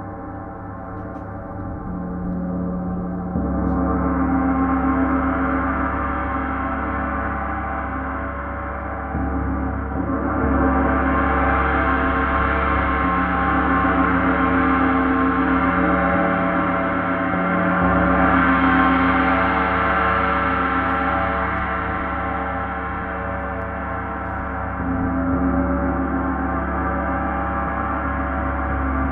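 Paiste 34-inch Symphonic gong played with soft mallets: a continuous, dense wash of many overlapping tones with no distinct strikes, swelling louder several times.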